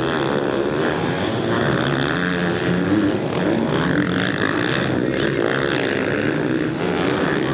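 Several motocross dirt bike engines running together on the track, their overlapping pitches rising and falling as the riders rev and shift.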